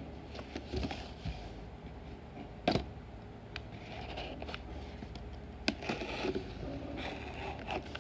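Hands handling a cardboard box, scraping and picking at its packing tape, with two sharp knocks about three and six seconds in.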